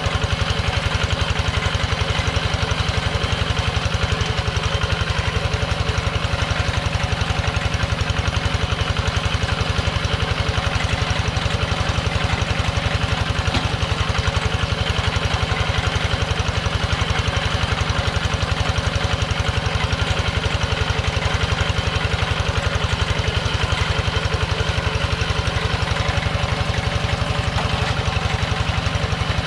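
Kubota two-wheel hand tractor's single-cylinder diesel engine running steadily with a fast, even beat, working under load as its cage wheels pull a plow through wet paddy mud.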